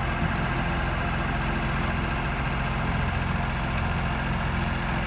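Heavy diesel engines running steadily: a transit mixer truck discharging concrete into a slipform machine that casts the concrete road divider.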